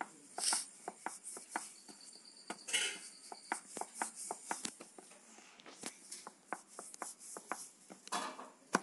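Rolling pin rolling out flatbread dough on a steel plate: an irregular run of light clicks and taps, with a few short brushing swishes.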